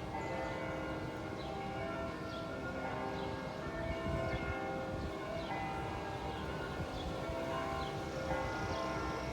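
Several church bells ringing together, a fresh strike about every second, their tones overlapping and hanging on. Wind rumbles on the microphone underneath.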